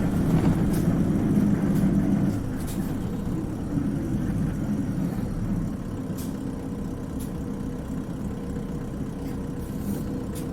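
Isuzu Cubic city bus heard from inside, engine and road noise while running. It is louder for the first couple of seconds, then eases to a lower steady level, with a few light clicks and rattles.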